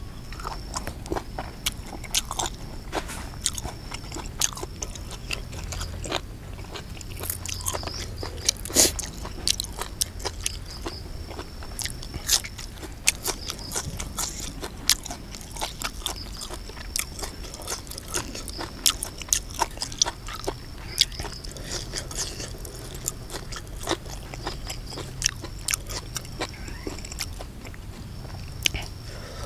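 A person eating close to the microphone: chewing and biting, with irregular wet clicks and small crunches.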